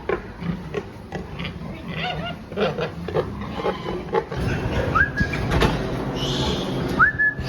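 Pigs grunting in a series of short, irregular calls, with two brief high rising squeaks near the end, over a steady low hum.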